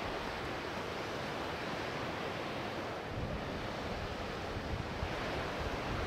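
Sea waves washing against a rocky shore in a steady wash, with wind gusting on the microphone about halfway through and again near the end.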